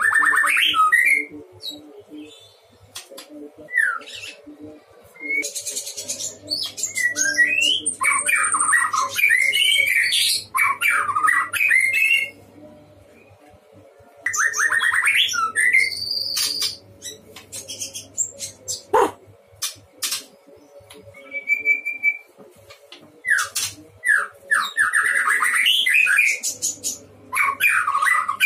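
Male white-rumped shama (murai batu) singing in bursts of varied whistled phrases mixed with fast rattling notes, broken by pauses of a second or two. A single sharp click falls about two-thirds of the way through.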